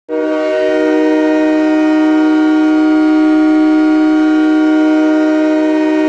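Tucson Roadrunners' arena goal horn sounding one loud, steady chord of several tones, starting abruptly and held without a break.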